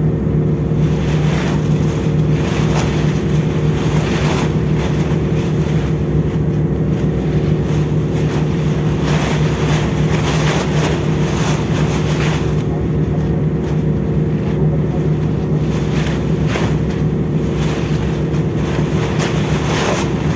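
Steady low drone of a ship's engines and machinery, with irregular gusts of wind buffeting the microphone.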